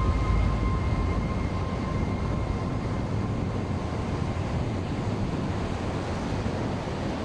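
Steady rushing noise of surf breaking on the beach, with wind rumbling on the microphone.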